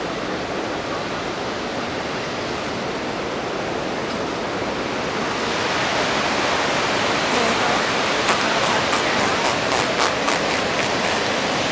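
Steady rush of water from the canyon below the overlook. In the last few seconds comes a run of light knocks from handling the camera against the wooden railing.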